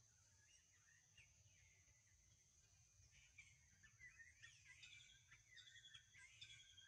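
Faint forest birdsong: quick chirps and twitters that get busier from about three seconds in, over a steady high-pitched hum and a low rumble.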